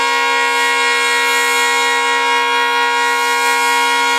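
Diesel locomotive's air horn held in one long, steady blast, several notes sounding together as a chord.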